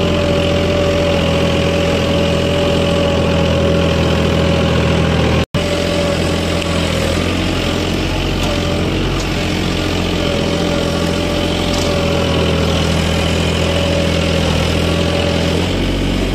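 Mahindra Oja 3140 tractor's diesel engine running steadily, heard from the driver's seat, with a steady whine over the engine note. The sound cuts out for an instant about five seconds in, and the engine note changes just before the end.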